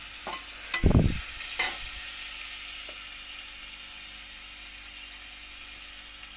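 Small boneless chicken pieces sizzling in oil in a steel pan while a metal spatula stirs them, with a few sharp clinks in the first two seconds and a low thump about a second in; the steady sizzle then carries on alone.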